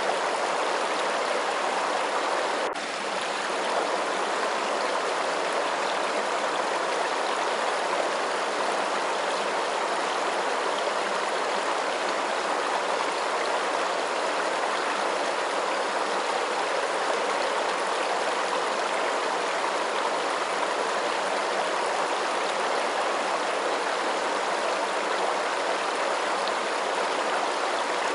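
Steady, even rush of running water, with one brief dip in level about three seconds in.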